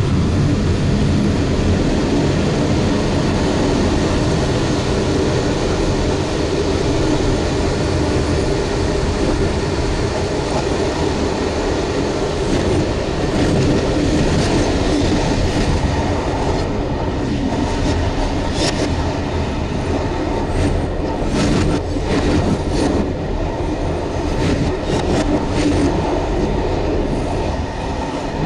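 Train running at speed, heard from the locomotive cab: a steady rumble and hum of the running gear. About halfway through comes a run of sharp clicks and clacks as the wheels cross points and rail joints.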